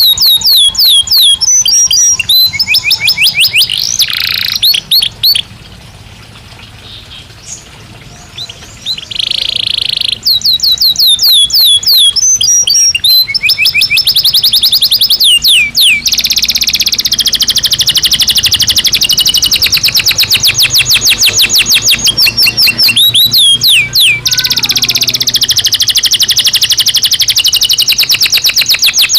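Belgian canary singing: loud, fast trills of rapidly repeated high notes. The song breaks off for a few seconds about a fifth of the way in, then runs on in long unbroken rolls.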